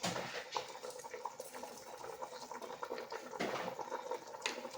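Pot of soup bubbling on the stove, with many small scattered pops.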